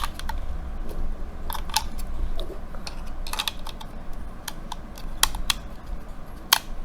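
Irregular sharp plastic clicks and taps, about a dozen spread unevenly, the loudest near the end, as a wireless motion-sensor doorbell unit is handled and set in place.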